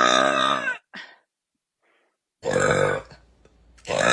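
A woman burping loudly: a long, low burp at the start, a short one about a second in, and another about two and a half seconds in, with a further one starting near the end.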